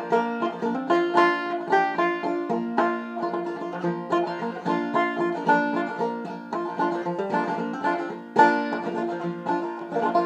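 Acoustic plucked string instrument playing the instrumental introduction of a folk song, a quick, steady run of picked notes with no singing yet.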